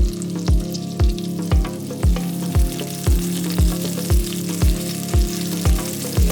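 Food sizzling in a frying pan under background music with a deep thumping beat about twice a second.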